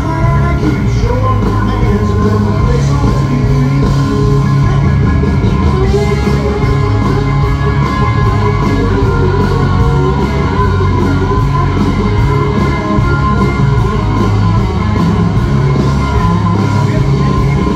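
Live country-rock band playing loud over the PA: electric guitars over bass and a steady drum beat.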